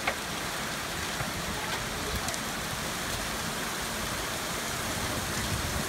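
Heavy hail falling with rain: a steady hiss of hailstones pelting the ground, with scattered sharp ticks of single stones striking close by, one louder tick right at the start.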